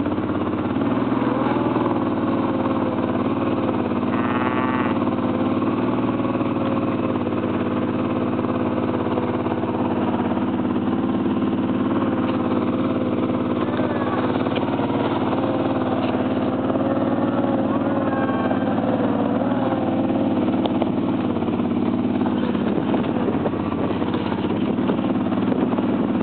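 Four-wheeler (ATV) engine running steadily at low speed.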